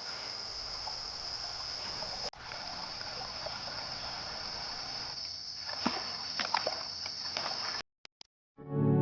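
Rainforest insect chorus: a steady high-pitched drone over a constant hiss, with a few short sharp calls or knocks between about six and seven and a half seconds in. It cuts off about eight seconds in, and music begins just before the end.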